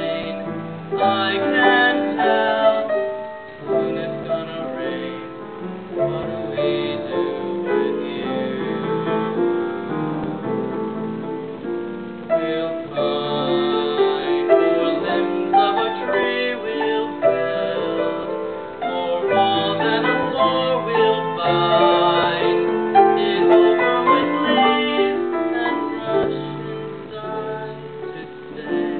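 A man singing a slow ballad to grand piano accompaniment, the voice carrying the melody over sustained piano chords. The recording is muffled and thin, made with a compact camera's microphone.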